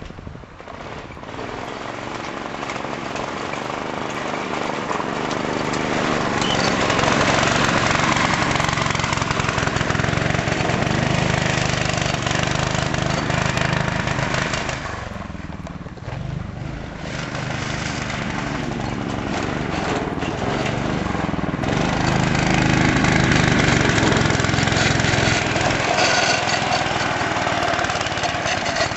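Yerf-Dog go-kart's small engine running as the kart drives around, rising and falling in level and pitch as it passes, with a dip about halfway through before it grows loud again.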